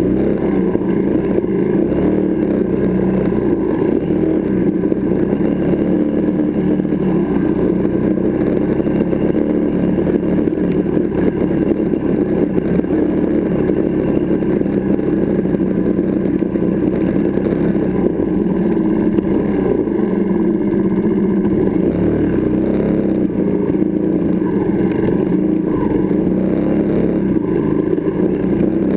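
Benelli TNT 125 motorcycle's single-cylinder engine running at fairly steady revs as the bike rides along, heard close up from the bike itself.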